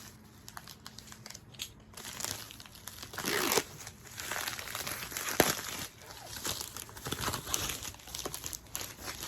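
Hands tearing open and crinkling the shipping packaging around a music album, in irregular rustling bursts with a sharp click about five seconds in.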